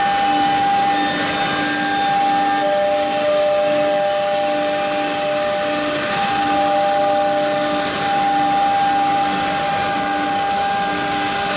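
Four-spindle CNC nesting router running, its spindles giving a steady high whine over a hiss of air and dust extraction. A second, lower whine joins about two and a half seconds in and drops out around six seconds.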